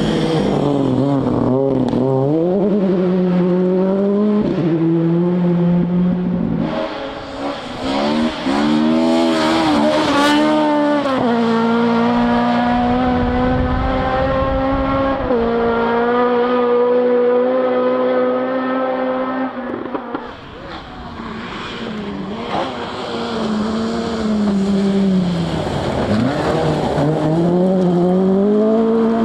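Rally car engine driven hard on a gravel stage. The engine note climbs and drops again and again as it revs through gear changes and lifts off, and holds one long steady high-revving note through the middle. It fades for a few seconds and then comes back, rising and falling again.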